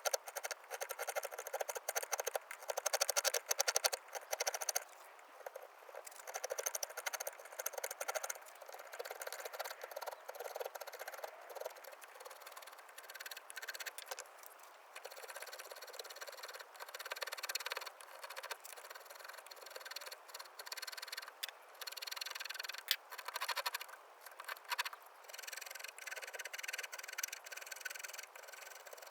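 Hand carving tools cutting and scraping cherry wood in irregular runs of short strokes, with brief pauses.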